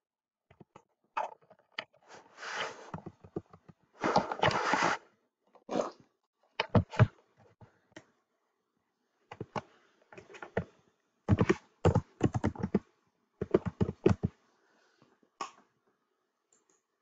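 Typing on a computer keyboard: bursts of keystrokes with pauses between them as a username and then a password are entered, followed by a single click near the end.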